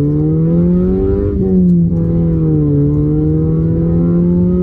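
Toyota Yaris T-Sport's 1,498 cc four-cylinder engine heard from inside the cabin. Its note rises under acceleration, drops away about a second and a half in and falls off, then climbs again toward the end.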